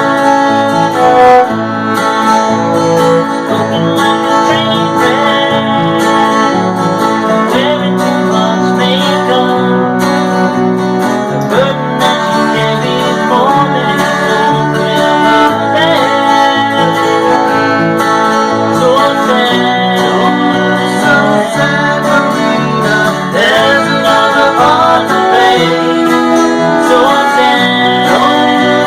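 Acoustic guitars strumming and picking, with a cello, playing a country-rock song at a steady tempo.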